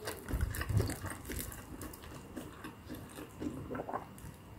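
Close-miked chewing and mouth sounds of someone eating a mozzarella-filled corn dog: small wet clicks, with a few low thumps about half a second in.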